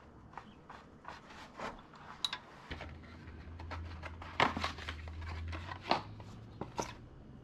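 A cardboard oil-filter box being handled and opened and the new oil filter slid out: scattered rustles and sharp clicks, the loudest a little past halfway.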